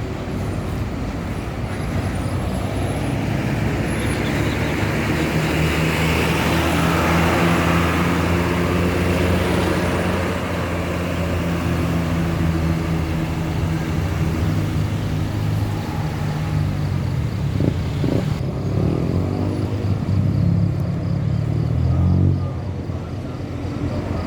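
Road traffic passing close by: the steady drone of large vehicle engines, with a rush of tyre and wind noise that swells as a vehicle goes past about six to nine seconds in. Near the end an engine's pitch shifts up and down.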